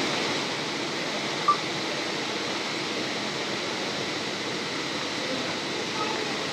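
Steady hiss of indoor airport-hall background noise, with a single short electronic beep about a second and a half in.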